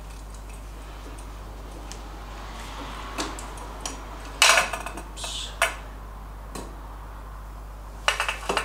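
Irregular metallic clinks and clatter as a Gunson compression tester's hose fitting and gauge are handled and screwed by hand into a spark plug hole, with a cluster about halfway through and another near the end, over a steady low hum.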